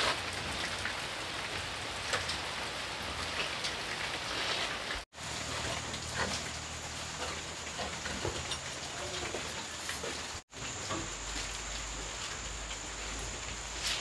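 Steady rain falling on surfaces: an even hiss with scattered drip ticks. It cuts out for an instant twice.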